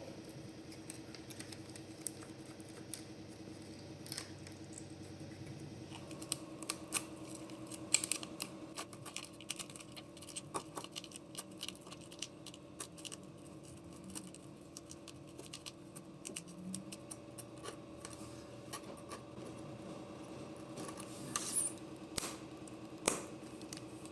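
Scattered light clicks and taps of hand tools working on a ceramic floor tile, with a few louder taps near the end, over a steady low hum.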